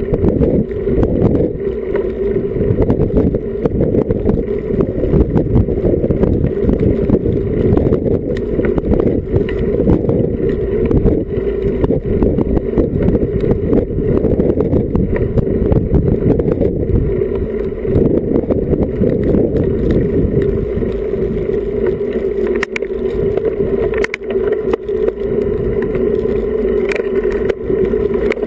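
Wind buffeting and road rumble on the microphone of an action camera riding on a road bike: a loud, steady, fluttering rumble, with a few faint knocks from the road.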